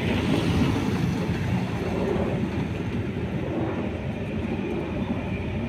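DF4B diesel-electric locomotive hauling a long train of wagons in the distance: a steady low rumble.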